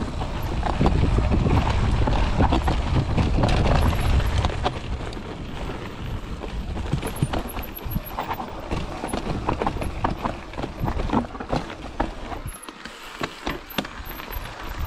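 Enduro mountain bike riding down a rocky forest trail: a quick run of clicks, knocks and rattles as the tyres and frame go over stones, over a heavy low rumble that is strongest in the first five seconds and then eases.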